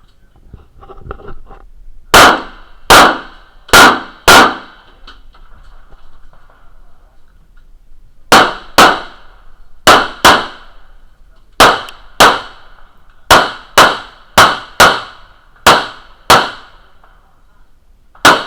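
A string of about seventeen gunshots fired in quick pairs and short runs, with pauses between groups, each crack followed by a brief metallic ringing. A few light ticks come just before the first shot.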